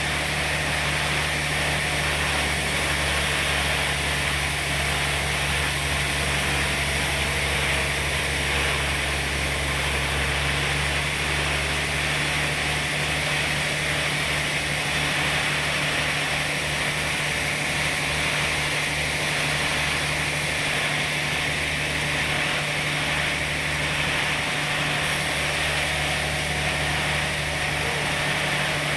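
Sawmill machinery running steadily: a low engine hum under an even hiss.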